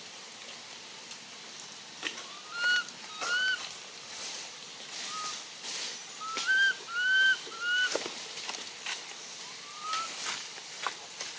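Infant long-tailed macaque giving a series of short, high, whistle-like coo calls, about nine in all, each sliding up and dipping at the end.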